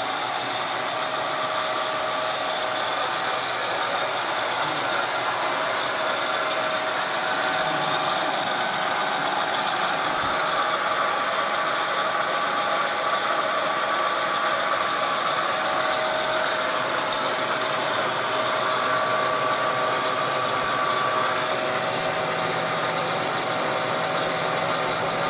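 Bridgeport milling machine running steadily, its spindle and power feed driving a homemade single-point fly cutter in a slow, light skim cut across the deck of Kawasaki S2 350 engine cases, a continuous machine hum with several steady tones.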